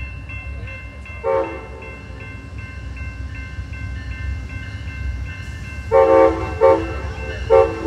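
Amtrak GE P42 diesel locomotive running, with a low engine rumble and a bell dinging about three times a second. A horn chord sounds in a short toot about a second in, then near the end a longer blast followed by quick short blasts.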